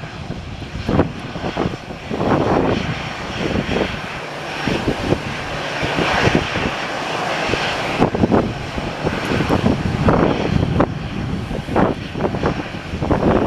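Airliner engines running at an airport, a steady rushing noise that swells toward the middle, with irregular short thumps mixed in.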